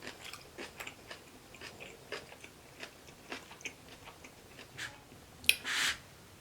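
Close-up mouth sounds of someone chewing kimchi: irregular wet clicks and soft crunches. Near the end there is a sharp click, then a short hiss.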